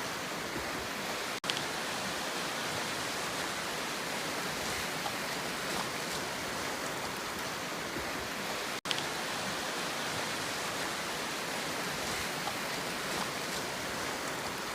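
Steady rushing sea surf with no distinct breaking waves. The sound cuts out for an instant twice, about a second and a half and nine seconds in, each time coming back with a small click.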